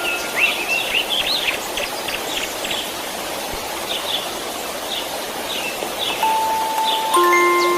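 Steady white-noise hiss with birds chirping over it, busy in the first couple of seconds and sparser after. About six seconds in, soft held music notes come in.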